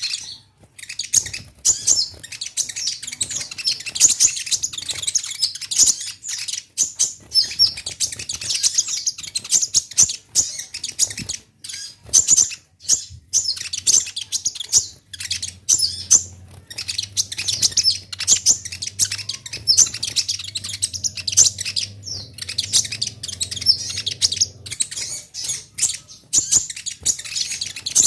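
Sunbird (konin) singing a long, rapid run of high-pitched chirps and twitters, with only brief breaks: the lively territorial song used to provoke other konin into answering.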